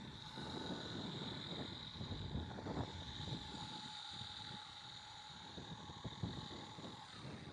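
Wind buffeting the microphone in uneven gusts, over a steady high-pitched hum.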